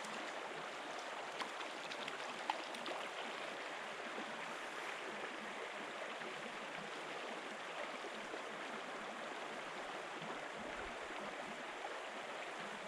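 Shallow stream water running steadily over stones, a constant rushing with a few faint brief clicks in the first few seconds.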